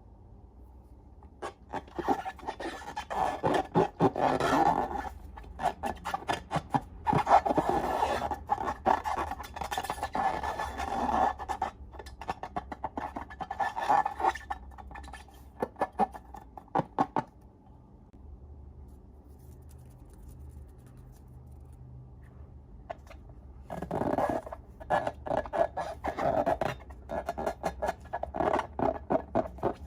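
Glossy slime being worked, with rapid wet clicks and crackles coming in bursts, a quieter lull in the middle, then more crackling near the end.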